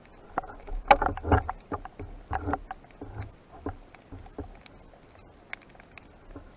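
Water splashing and knocking in irregular clusters, densest in the first three seconds and then thinning to scattered clicks.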